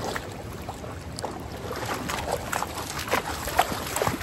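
A dog wading through shallow river water, its legs splashing with each stride, irregular and quickening in the second half, with one louder splash about three and a half seconds in as it reaches the rocky edge.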